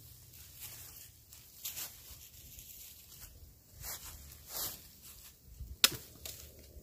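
Scattered soft rustles of dry bamboo leaf litter as a bamboo pole is handled and moved about, with one sharp crack near the end.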